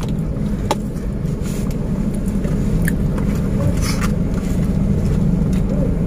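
Steady low rumble of a car engine idling, heard from inside the cabin. Over it come a few light clicks and scrapes of a metal spoon and fork on food and the paper wrapper.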